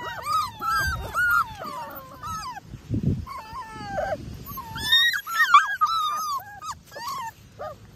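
A litter of five-week-old Labrador retriever puppies whining and whimpering at once, many short high cries that rise and fall, in two bouts with a pause about two to three seconds in. They are crying to get to the person at the pen.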